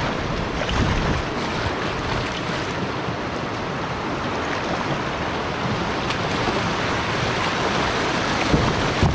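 River rapids rushing steadily around a canoe running whitewater, with a couple of brief knocks near the end.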